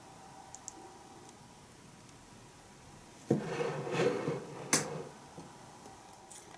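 Brief rustling, scraping handling noise, then a sharp click about three-quarters of a second later, as a small plastic candy mold is lifted off a soft gelatin pudding and put aside.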